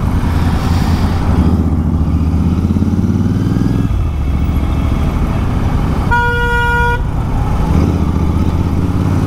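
Motorcycle engine running while riding in city traffic, rising in pitch about two to four seconds in as it speeds up. A single vehicle horn honks for just under a second about six seconds in.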